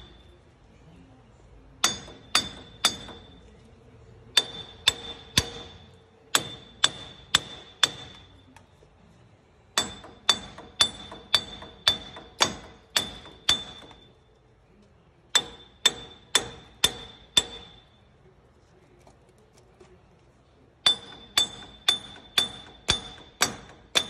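Hammer striking the rusted front wheel hub assembly of a 2009 Toyota Tacoma 4WD, metal on metal, to knock the seized hub loose from the steering knuckle. Runs of four to nine sharp, ringing strikes at about two a second, with short pauses between the runs.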